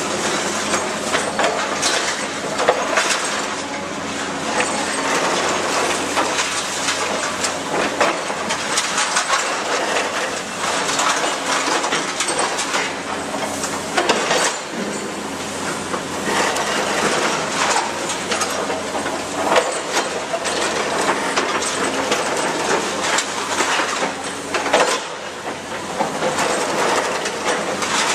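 Cat 328D demolition excavator's hydraulic crusher jaws biting into concrete, with broken concrete cracking and falling in irregular sharp knocks over the steady hum of the diesel engine.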